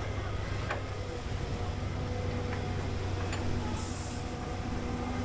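Heavy vehicle engine running steadily with a low hum, with a few short clicks or knocks and a brief hiss near the end.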